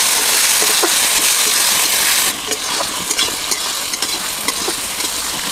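Chopped tomatoes and onions sizzling in hot mustard oil in a steel kadhai, with a flat metal spatula stirring and scraping against the pan. The sizzling drops a little a bit over two seconds in.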